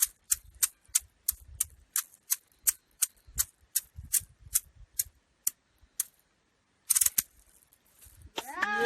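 Maracas shaken in single short strokes, about three a second, slowing and stopping about six seconds in, then one brief rattle about a second later.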